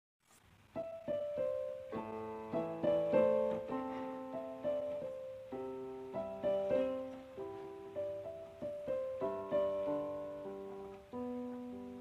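Background solo piano music, slow notes and chords struck and left to ring out, beginning just under a second in.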